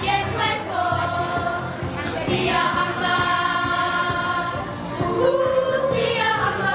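Sunday school children's choir singing a Christmas song together, holding long notes.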